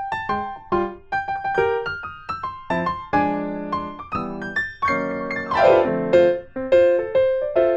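Background piano music: a gentle melody of struck notes over chords, with a quick downward run of notes a little past halfway.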